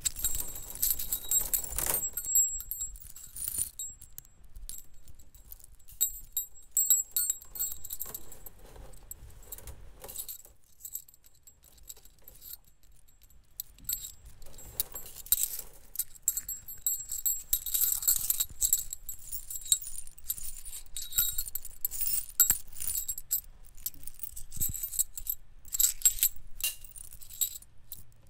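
Thin metal wires of a wire sculpture jingling and clinking as a body moves against them, in clusters of light rattles and tinkles with a quieter stretch in the middle.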